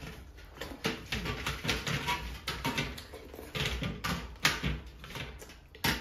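Close-up eating and drinking sounds: chewing, lip-smacking and slurping, with fingers wiping steel platters and steel tumblers handled. These come as a run of short clicks and knocks, with one sharper knock just before the end.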